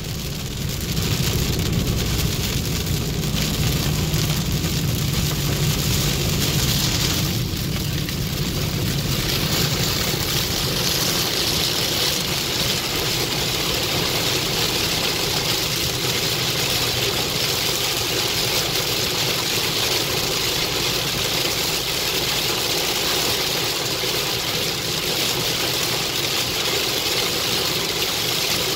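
Heavy rain pelting a car's roof and windshield, heard from inside the cabin, over the rumble of tyres and engine on a wet road. The rain hiss grows louder and brighter about ten seconds in as the low rumble eases.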